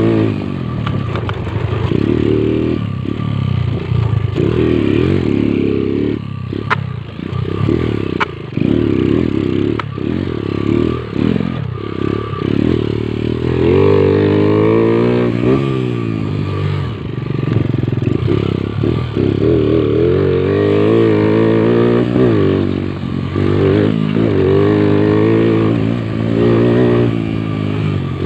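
Motorcycle engine running under way, its revs climbing and dropping again and again.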